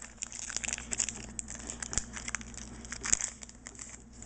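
Foil Pokémon booster pack wrapper crinkling and crackling as it is handled, in irregular rustles, the loudest about three seconds in.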